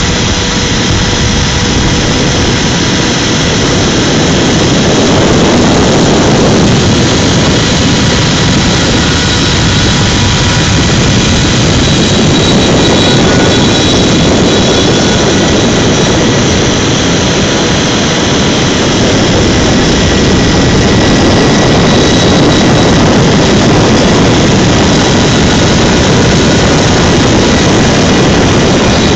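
CNC machine running steadily, a loud continuous whine and rush with faint steady high tones.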